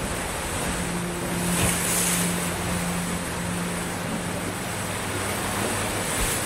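Small sea waves breaking and washing up on a sandy beach, as a steady rushing hiss that swells about two seconds in as a wave washes in.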